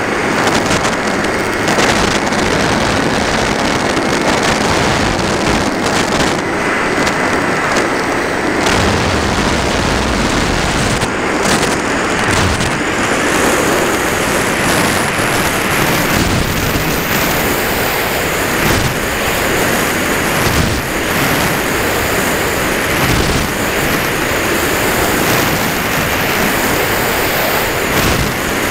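Loud, steady rush of air and low buffeting on the onboard camera of a ParkZone Radian RC glider in flight. There is a faint thin high tone during the first third.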